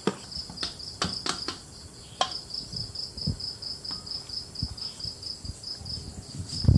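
An insect chirping in a steady high trill of about six pulses a second. Under it come a few sharp clicks and soft low thumps from a stainless steel bowl and a scraper as sticky sourdough dough is worked out of the bowl onto a stone countertop, with the loudest thump near the end.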